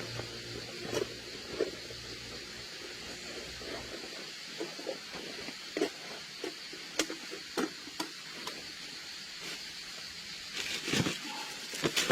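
Rustling and light knocks of camping gear being handled and packed into a backpack, in scattered short strokes with a cluster of louder knocks near the end.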